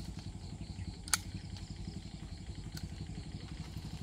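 Pruning shears snipping through yellow apricot (mai) branches: one sharp cut about a second in, then a couple of fainter snips. A steady low rumble runs underneath.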